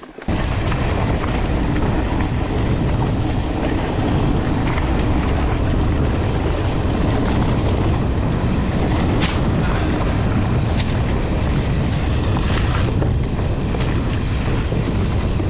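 Wind buffeting an action camera's microphone and tyres rolling over a dirt and grass trail as a mountain bike is ridden at speed, a steady loud rumble with a few faint rattles. It starts abruptly just after the beginning.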